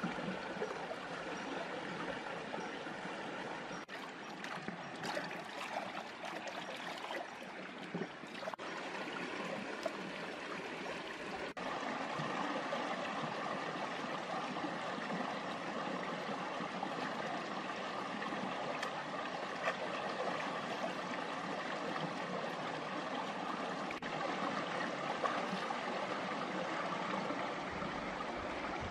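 Shallow rocky stream running over boulders: a steady, even rush of water.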